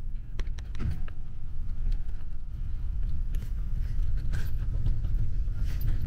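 Low, steady rumble of a coach bus's engine and road noise heard from inside the passenger cabin, with scattered light clicks and rattles.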